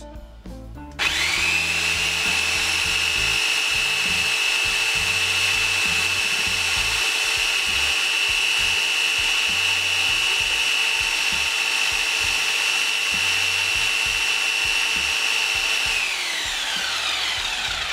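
Parkside PDSSE 450 C3 450 W corded electric impact wrench running free with no load, its brushed motor spinning up about a second in and then holding a steady high whine. Near the end the trigger is released and it winds down with falling pitch.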